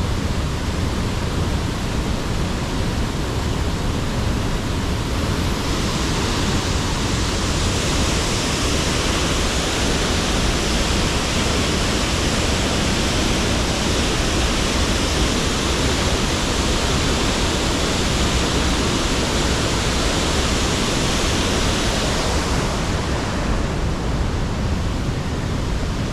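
Cascading mountain waterfall rushing steadily. The hiss grows brighter from about six seconds in until a few seconds before the end.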